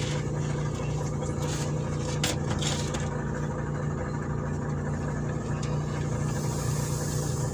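A vehicle engine idling steadily, with a few light clicks and scrapes of hand tools about two seconds in.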